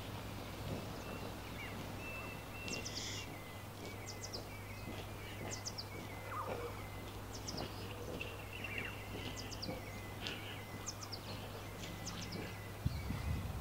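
Small birds chirping in short, quick high calls scattered throughout, over a steady low hum. A louder low rumble starts near the end.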